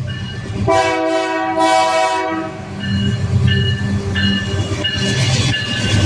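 Diesel locomotive air horn sounding one chord-like blast of about a second and a half, starting just under a second in. Afterwards the train's low rumble carries on, with short high squeals from the wheels.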